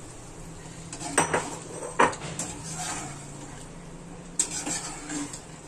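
A metal spoon clinking and scraping against a metal cooking pot while a wet curry is stirred, with sharp clinks about a second, two seconds and four and a half seconds in, over a steady low hum.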